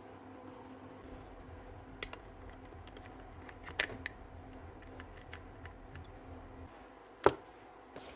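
Scattered small clicks and taps of drill parts being handled during reassembly, with one sharper knock about seven seconds in, over a faint low hum.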